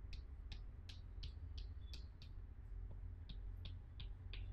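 Chalk tapping and dashing on a chalkboard as a dotted circle is drawn: short, light ticks about three a second, with a pause of about a second midway.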